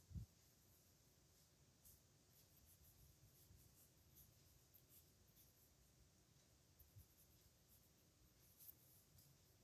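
Faint, scattered scratching of a nib pen's metal tip moving across paper in short strokes. There is a soft low thump just at the start and another about seven seconds in.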